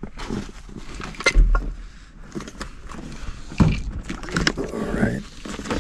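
Carbon-fibre wheelchair frame being lifted and manoeuvred inside a car, with scattered knocks, clatter and rustling as it bumps the seats and trim; the heaviest, dull thump comes about a second and a half in.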